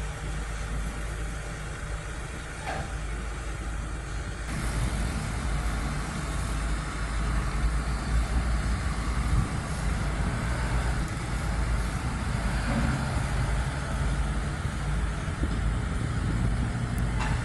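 Steady low rumble of diesel truck engines running, growing a little louder about four and a half seconds in.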